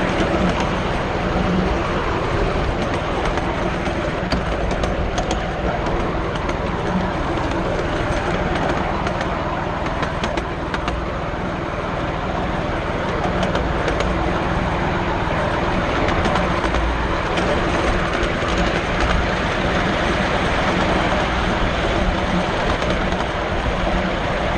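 Miniature 7¼ inch gauge railway train running along the track: a steady rumble of the carriage wheels on the rails, with occasional sharp clicks.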